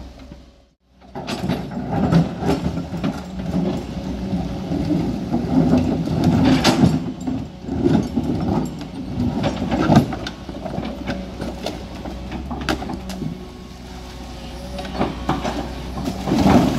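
JCB JS200N tracked excavator working: its diesel engine runs steadily under repeated clanks and knocks of the machine at work. The sound drops out briefly about a second in.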